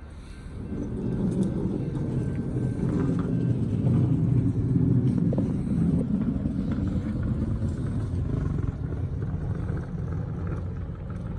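V/Line VLocity diesel multiple unit VL23 going past: a low rumble from its diesel engines and wheels that swells about a second in, is loudest around four to five seconds in, then slowly eases. No horn is heard.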